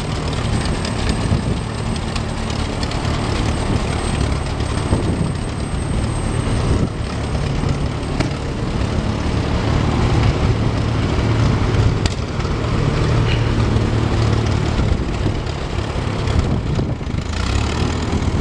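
Allis-Chalmers WD45 tractor's engine running steadily while the tractor is driven slowly across pavement.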